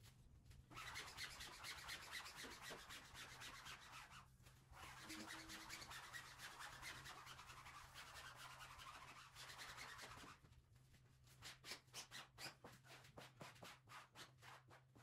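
A cloth rubbing over freshly pasted waterproof flex wallpaper to press it flat onto the wall. Steady rubbing breaks off briefly about four seconds in, then turns into quicker separate wipes from about ten seconds in.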